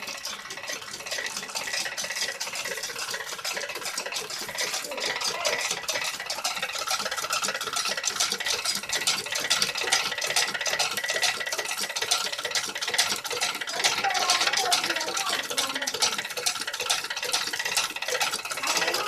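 Table-top wet grinder running: a steady motor with continuous fast scraping and rattling.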